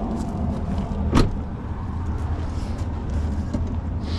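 Ford Transit van's left rear door being swung shut, with one sharp knock about a second in, over a steady low outdoor rumble.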